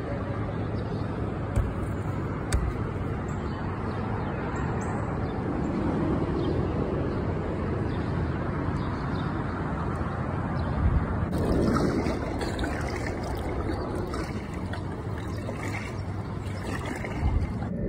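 Steady rush of river water around a kayak drifting in the current, with a few light knocks.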